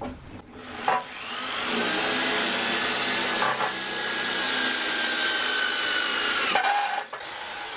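Corded electric hand drill boring into sheet metal. The motor spins up about a second in, runs steadily with a high whine for about five seconds, then stops suddenly. Near the end it runs again more quietly, its pitch falling as it winds down.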